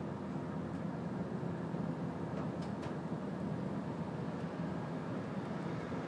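Steady low rumbling background noise, with a few faint ticks over it.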